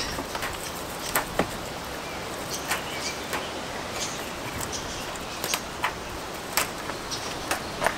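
Goat browsing leaves through a wire-mesh fence: irregular sharp snaps and rustles as the leaves are torn off, over a steady background hiss.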